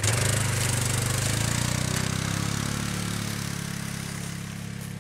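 A small vehicle engine revs up sharply, then runs steadily with an even, rapid beat, slowly fading.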